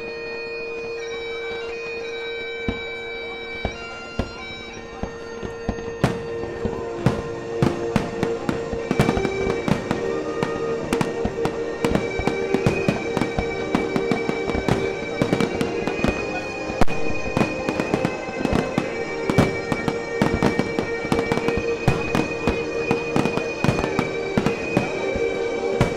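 Aerial fireworks bursting in a rapid barrage, many sharp bangs and crackles a second, thickening about six seconds in. Under them, music with a steady held drone beneath a sustained melody.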